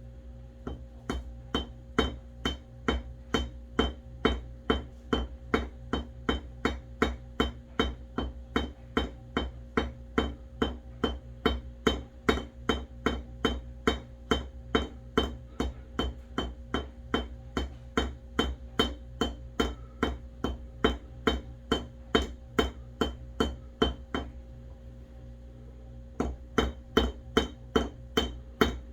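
Small hammer lightly peening a razor-scale pin on an anvil: an even, rapid run of taps at about three a second, the hammer held loosely so it bounces, giving a drum-roll effect. The taps stop for about two seconds near the end, then resume; the pin head is being mushroomed to rivet the straight razor's scales together.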